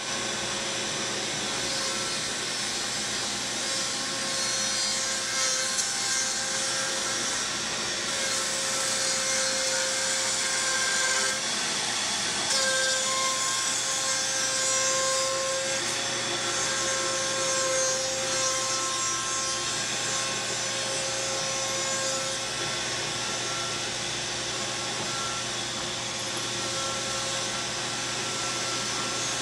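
A CNC router's spindle and cutter flattening a wide mulberry slab, running steadily with a continuous cutting hiss. Over it a steady whine fades in and out every few seconds as the cutter moves across the wood.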